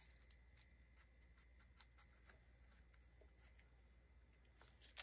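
Near silence: room tone with a low hum and a few faint small ticks.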